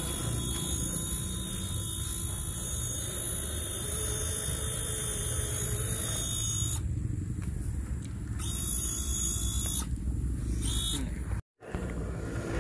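Small electric motors and gearboxes of scale RC crawler trucks running as they crawl through grass, over a steady low rumble with high steady tones. The sound drops out for a moment near the end.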